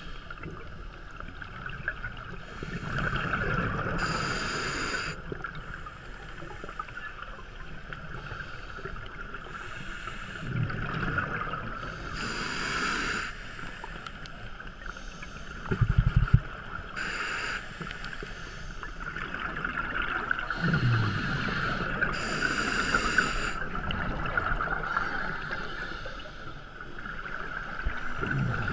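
Scuba diver breathing through a regulator underwater: breaths and bubbling exhalations every few seconds over a steady hum. About midway there is one brief, louder knock.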